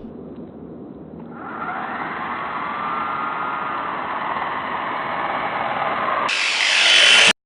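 Whine of small electric motors running steadily, growing louder and brighter about a second before the end and then cutting off suddenly.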